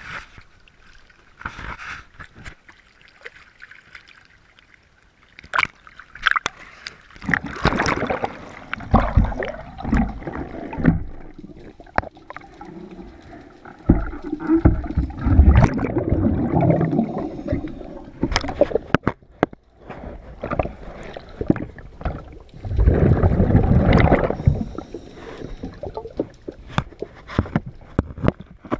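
Underwater sound of a diver working on a boat hull: surges of gurgling exhaled bubbles from the scuba regulator every several seconds, with sharp clicks and knocks in between.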